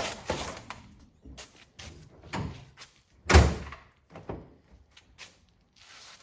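Plastic front bumper cover of a 2013 BMW 335xi being handled and knocked into place on the car, a string of knocks and rustles with one heavy thump about three and a half seconds in.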